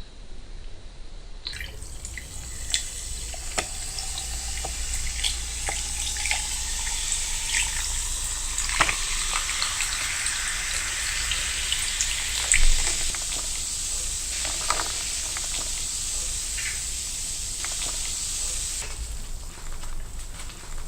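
Ice-cold Coca-Cola fizzing: a steady, crackling hiss of carbonation bubbles with many small pops. It starts about a second and a half in and falls away near the end.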